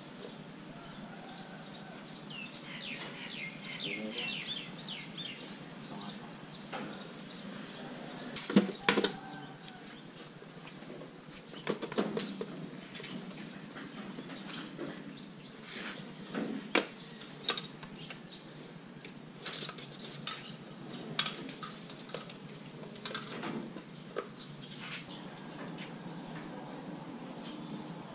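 Scattered clinks, knocks and scrapes of a knife and bamboo spit poles against a metal tray as a whole spit-roasted pig is cut and pulled apart on it, irregular and loudest about a third of the way in.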